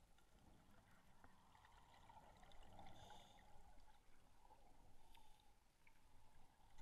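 Near silence heard through an underwater camera: faint muffled water hiss, with a short burble of a scuba diver's exhaled regulator bubbles about three seconds in.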